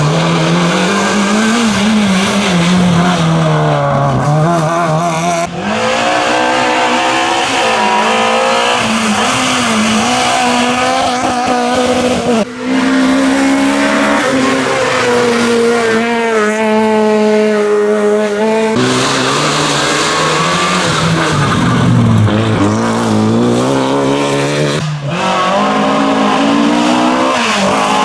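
Rally car engines at full throttle, pitch rising and falling through gear changes and lifts. The sound switches abruptly four times as one car gives way to the next.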